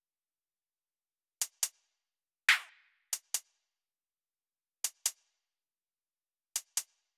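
Soloed electronic hi-hat sample pattern in a 140 BPM dubstep beat: quick pairs of short, crisp hits, one pair about every 1.7 s, with a single longer hit with a short tail between the first two pairs.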